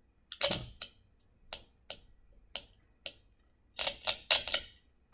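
A small speaker powered by a stack of nine homemade penny, vinegar-soaked tissue and aluminium-foil cells gives off sharp, irregular clicks. They come sparsely at first and bunch into a quick run near the end.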